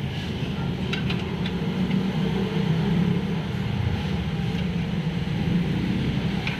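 Steady low mechanical hum, with a few faint clicks about a second in.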